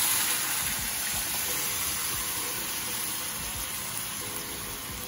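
Liquid poured from a bowl into a cast-iron Dutch oven over seared pork, splashing and hissing on the meat and pot. The sound is loudest at first and slowly dies away as the pour ends.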